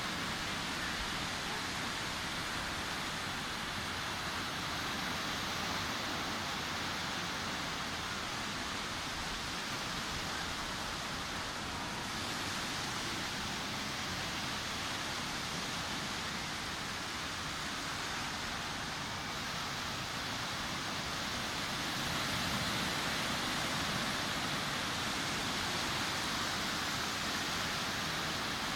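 Sea surf washing onto a beach: a steady hiss of breaking waves with slow, gentle swells, a little louder in the last third.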